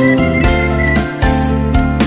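Background music: a pitched instrumental track with guitar and keyboard notes changing about every half second.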